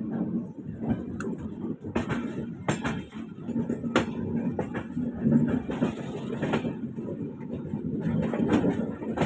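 Train running on the rails: a steady rumble broken by many sharp clicks and knocks, with a low steady hum joining about three and a half seconds in.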